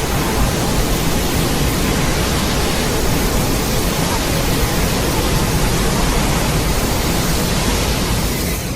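A loud, steady rushing hiss of noise across the whole range, with no pitch or rhythm, starting to fade out near the end.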